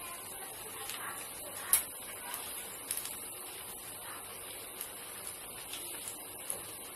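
Besan-battered bread slices deep-frying in hot oil in a karahi: a steady high sizzle with scattered pops and crackles, the sharpest about two seconds in.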